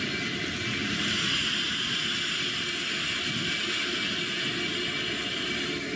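Train running: a steady rumble with a hiss over it.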